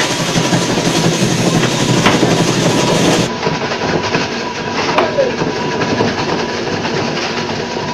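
Electric ice-block crusher grinding a large block of ice: a loud, steady, clattering rattle as the block is shaved into chips. The sound turns slightly duller and quieter about three seconds in.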